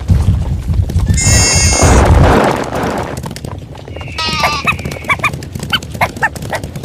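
Cartoon stampede sound effects: a low rumble of running hooves for the first two seconds or so, with a long, high animal call over it. The rumble then fades, and a string of short, high animal calls follows near the end.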